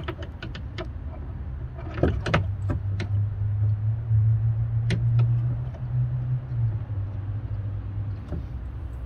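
Sharp metal clicks and snaps from hand wire-rope crimpers closing an aluminum sleeve on 1/16-inch wire rope: a quick run of clicks at the start, a cluster about two seconds in, then single clicks. Under them a low steady engine-like hum swells from about two seconds in and fades near the end.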